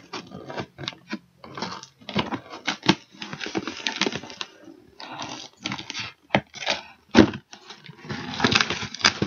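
A cardboard shipping box being pulled open and handled: irregular rustling and scraping of cardboard and packing, broken by a few sharp knocks, the loudest about seven seconds in.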